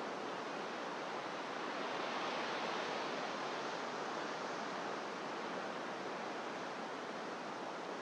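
Pacific surf breaking on rocks far below a sea cliff, heard as a steady, even wash of noise with no single wave standing out.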